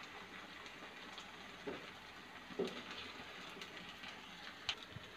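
Chicken pieces frying in oil and sauce in a nonstick pan, giving a faint, steady sizzle, with a few light knocks of a wooden spatula against the pan.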